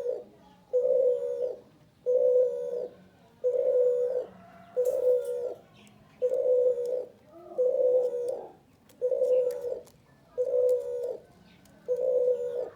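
Male spotted dove (tekukur) cooing persistently: a steady series of low, even coo notes, about one every second and a bit. Faint high chirps of small birds sound in the background.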